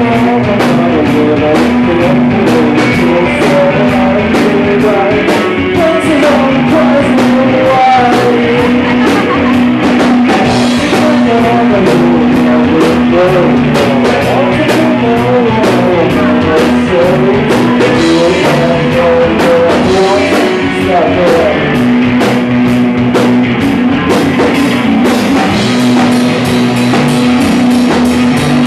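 A psychedelic rock band playing live: a drum kit keeps a steady beat over a held low droning note, with guitar and a wavering sung line above, loud throughout.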